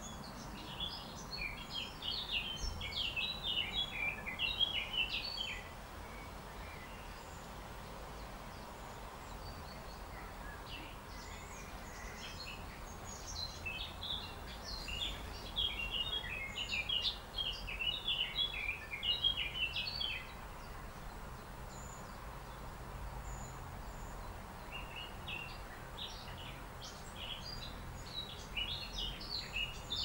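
Small songbirds singing in rapid, high, twittering phrases in three bouts: near the start, through the middle and toward the end. A steady low rumble lies beneath.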